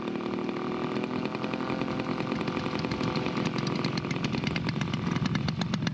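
Engine of a large radio-control Stearman biplane model running on its landing approach: a steady buzzing engine note with rapid firing pulses that grow stronger toward the end.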